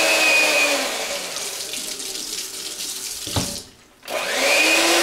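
Electric hand mixer whirring as its beaters spin under a running kitchen tap, with water spraying and splashing off them as they are rinsed. The whir fades after the first second while the water runs on. Everything stops briefly a little past three seconds in, and the mixer whirs up again near the end.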